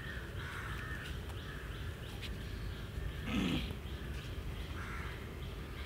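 Crows cawing repeatedly in the background, with one louder, lower call about three and a half seconds in.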